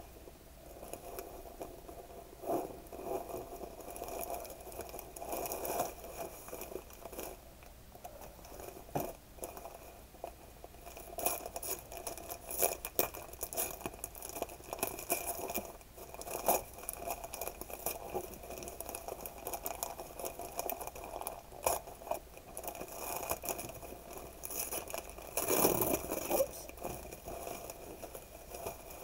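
Gift wrapping paper and ribbon rustling and crinkling in the hands as a present is unwrapped, in irregular crackles.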